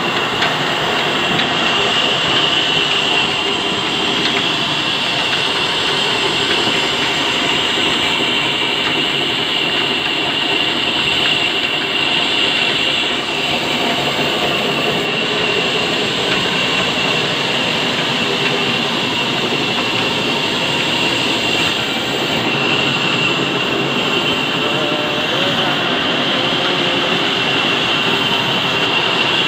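Large belt-driven band sawmill running continuously and cutting logs fed on a carriage: steady loud machinery noise with a constant high whine from the blade, over the clatter of the drive and the old engine that powers it.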